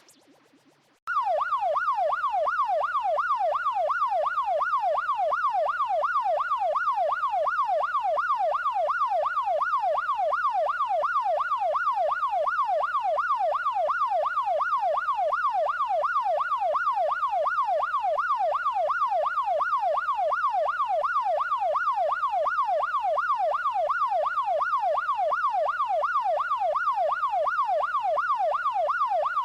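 Police siren sounding a fast yelp, its pitch sweeping up and down a few times a second, starting about a second in and holding steady.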